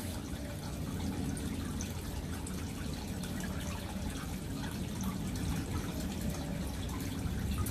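Quiet sips and swallows of water from a drinking glass, over a steady low background rumble.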